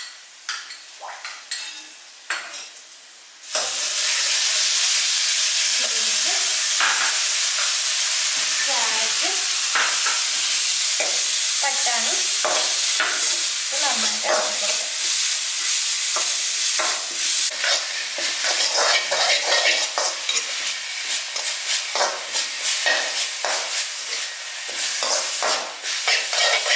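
Diced carrots and green vegetables stir-fried in hot oil in a wok: a steady sizzle, with the spatula scraping and knocking against the pan. For the first few seconds there are only soft clinks of bowl and spatula; the sizzle starts suddenly about three and a half seconds in.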